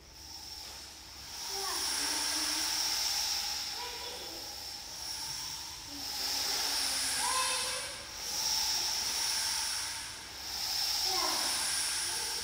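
Large wooden wheel set with bamboo-like rods being turned, giving a hissing, wind-like whoosh that swells and fades in slow surges every couple of seconds.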